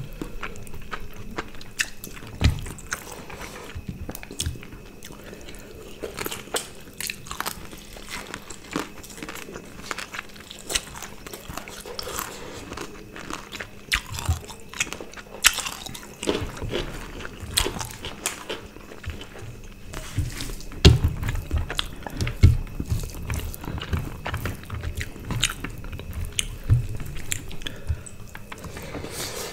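Close-up eating sounds of two people eating rice and roast chicken by hand: wet chewing, biting and lip smacking, with many short sharp clicks and soft low knocks, most in the second half.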